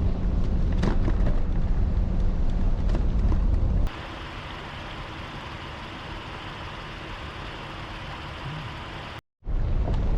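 Car driving, heard from inside: a low road rumble with small clicks and knocks. It is cut off sharply about four seconds in, giving way to a quieter steady hiss of road and wind noise. A brief dropout near the end is followed by the rumble again.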